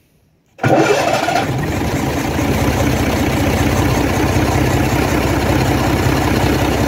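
Gardner 6HLW horizontal six-cylinder diesel engine starting from cold: it fires suddenly about half a second in with a brief louder burst, then settles into a steady, evenly pulsing idle.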